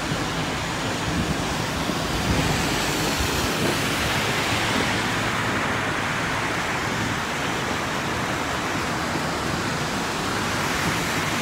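Steady hiss of heavy rain, with car tyres swishing through water on a flooded street.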